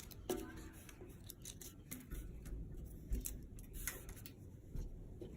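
Dry bark and twigs being handled and broken apart by hand: scattered crisp snaps and rustles.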